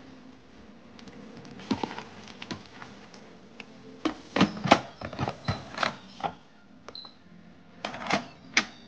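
Instant Pot pressure-cooker lid clunking and clicking as it is handled and turned on the stainless pot, in two runs of sharp knocks. A few lighter clicks of a spatula against the inner pot come before them.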